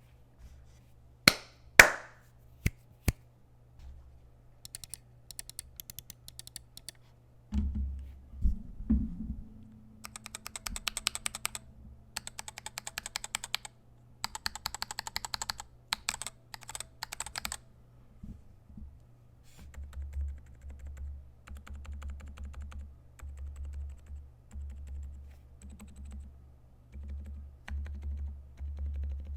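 Typing on a custom 65% mechanical keyboard with lubed switches and KAT Milkshake keycaps: runs of rapid keystrokes with pauses between them, a few sharper single clicks in the first couple of seconds.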